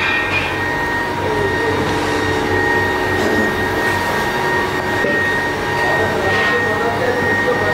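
Workshop machinery running with a steady whine over a constant mechanical hum.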